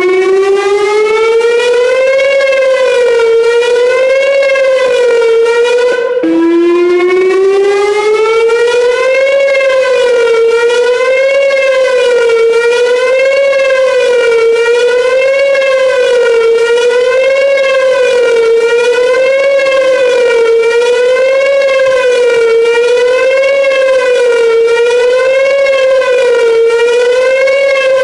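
Whelen WPS-2910 electronic outdoor warning siren sounding the wavering attack signal: the tone climbs, then rises and falls about every two seconds. About six seconds in it drops back and climbs again before the wavering resumes.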